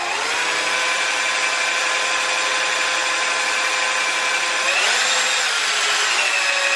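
Drill spinning a Pelton turbine's generator motor under the load of a 12-volt heater, with a steady whine. The whine climbs to speed at the start, dips and surges about five seconds in, then settles a little higher.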